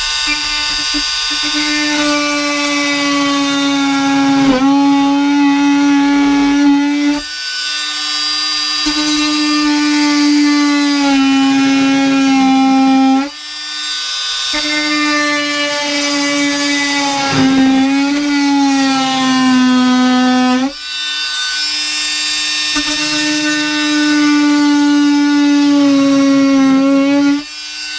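Oscillating multi-tool running as it cuts through a van wall panel, a steady high buzz whose pitch sags slightly under load. It eases off briefly about three times.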